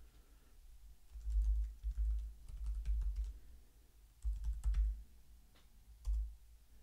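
Computer keyboard typing in two short runs of key presses, with a single key press near the end.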